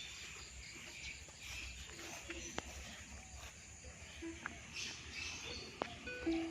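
Faint insects chirring steadily, with short bird-like chirps and a few faint clicks.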